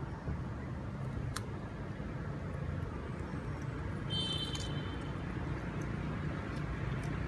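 Steady low outdoor rumble, with a single click about a second and a half in and a brief high-pitched squeak at about four seconds.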